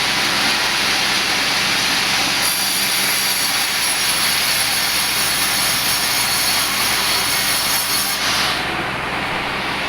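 A power saw cutting wood, running with a loud, steady, hissing noise. About eight seconds in, the higher part of the sound falls away and it gets slightly quieter.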